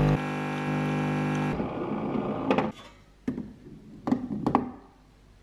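Miele coffee machine's pump droning steadily while it dispenses coffee into a mug, cutting off about a second and a half in. A few sharp clicks and knocks follow as the mug is handled under the spout.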